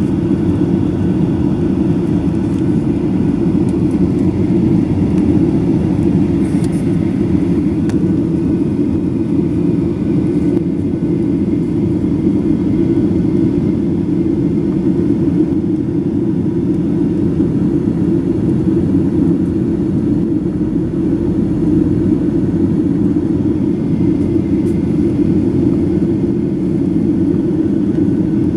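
Steady cabin noise inside a Boeing 737-800 in flight, from a window seat over the wing: the mostly low-pitched, even rumble of its CFM56-7B turbofan engines and the air rushing past the fuselage.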